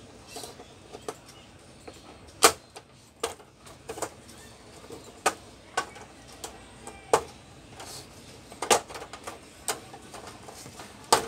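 Irregular sharp clicks and knocks, about a dozen, from the frame of a 32-inch LED TV panel being handled and unclipped by gloved hands.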